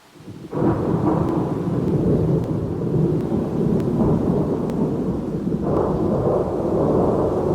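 Thunder: a loud peal breaks in suddenly about half a second in out of a faint hiss and rolls on as a deep rumble. A second peal swells in near the end.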